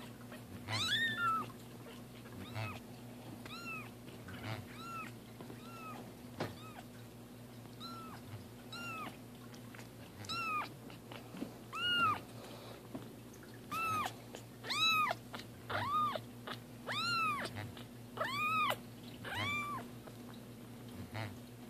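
Young kitten mewing over and over, short high mews that rise and fall in pitch. The mews come faster and louder in the second half.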